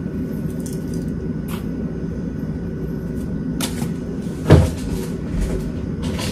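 Kitchen handling sounds over a steady low hum: a few soft clicks of a spoon and salt container as salt is spooned into a steel mixing bowl, and one dull thump about four and a half seconds in.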